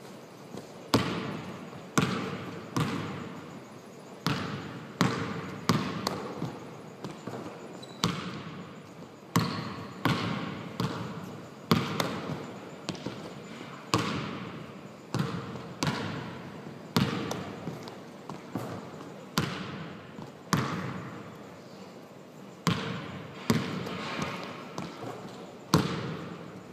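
A basketball bouncing repeatedly on a gym floor: sharp thuds at irregular gaps of about a second, each echoing on in the large hall.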